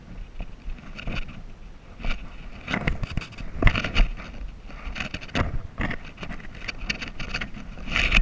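Footsteps scuffing on gritty sandstone trail, an irregular step every half second to a second, with wind rumbling on the microphone.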